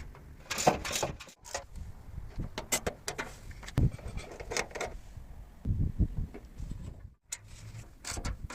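A run of clicks, knocks and rattles from parts being handled, broken by two abrupt dropouts, about a second and a half in and near the end.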